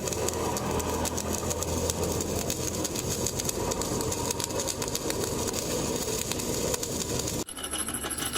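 Stick (shielded metal arc) welding: the arc of a flux-coated electrode crackling and hissing steadily as a bead is run. It breaks off abruptly shortly before the end.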